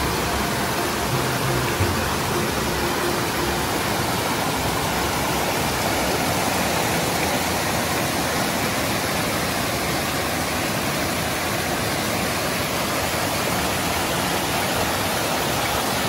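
Rain forest stream rushing over rocks in a small cascade: a steady, loud rush of running water.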